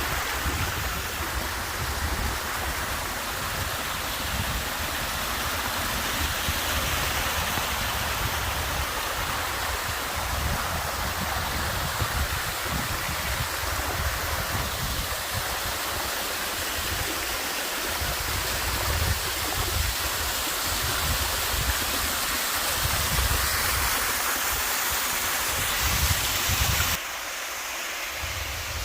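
Waterfall: a steady rush of falling water. A little before the end it cuts suddenly to a quieter rush.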